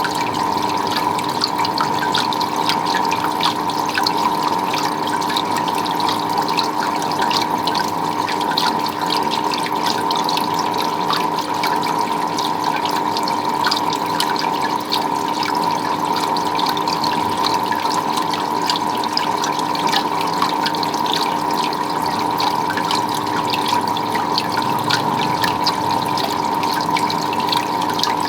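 Water running and splashing steadily, with many small drips and splashes, over a constant hum.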